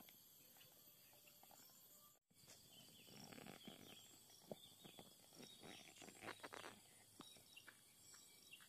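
Near silence: faint outdoor hiss, with scattered soft clicks and rustles in the middle.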